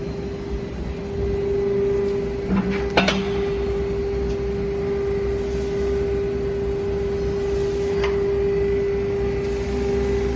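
Hydraulic scrap metal baler running, its pump unit giving a steady hum over a low rumble. Metal clanks a couple of times about three seconds in, and once more about eight seconds in.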